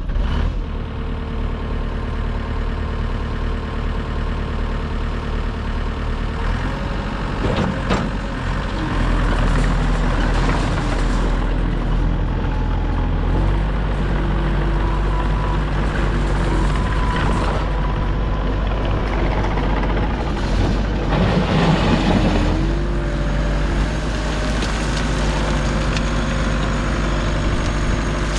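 A 2012 New Holland C238 skid steer's diesel engine running steadily. Its engine speed shifts several times: about seven seconds in, again near the middle, and around twenty-two seconds in.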